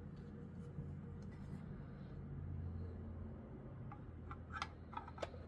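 A few light clicks and taps about four and a half to five and a half seconds in, over a steady low hum; from handling a die-cast model and its plastic packaging.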